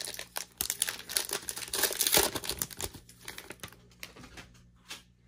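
Foil wrapper of a trading-card pack crinkling as it is torn open and the cards pulled out. The crinkling is densest in the first two seconds and thins after about three seconds into a few light ticks.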